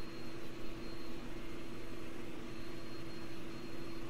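Diode laser engraver running a frame pass: a steady low hum, with the faint high whine of the stepper motors as the gantry moves the head around the outline of the job with the laser off.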